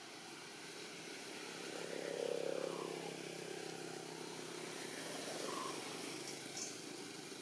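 A motor vehicle's engine running steadily in the background, growing louder to about two seconds in and then easing off as it passes.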